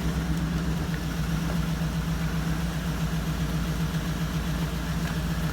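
Car engine idling steadily with an even, low hum.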